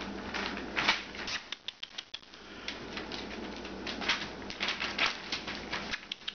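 Alaskan Malamute puppies' paws scrabbling on newspaper, an irregular patter of crinkles, scratches and taps.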